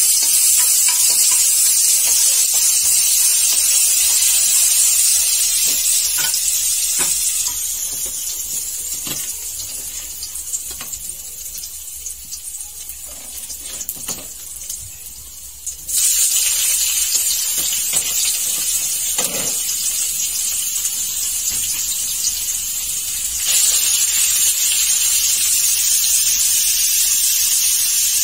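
Chopped chili frying in hot oil in a metal wok, a steady sizzling hiss, with chopsticks clicking against the wok now and then. The sizzle dies down partway through, then jumps back up suddenly about halfway and again near the end.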